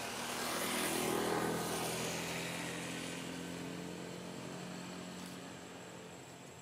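A passing engine: a hiss with a low hum that swells to its loudest about a second in, then slowly fades away.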